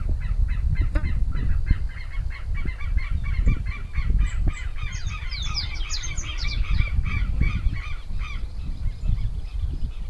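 Brazilian teals calling: a fast run of short repeated notes from several birds that grows denser and climbs higher about five to seven seconds in, then stops near the end. A low rumbling noise runs underneath.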